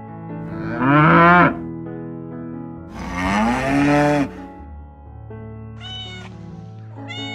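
A cat meowing: two long, loud meows that rise and fall in pitch, then a fainter, higher call about six seconds in, over background music.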